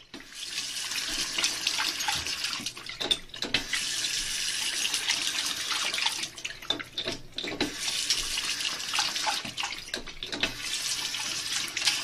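Water running steadily from a tap, with several short, sharp sounds in the middle.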